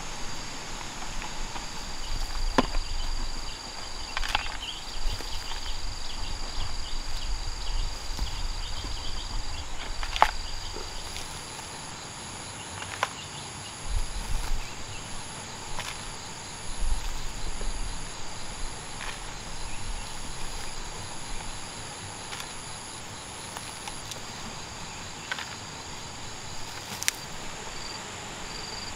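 Insects buzzing steadily in several high, even tones, some cutting in and out. Scattered short taps and thumps sit over it.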